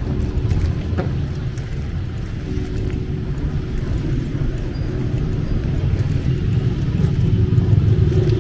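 Street traffic: motor vehicle engines running close by, a steady low rumble with an engine hum that grows a little louder near the end.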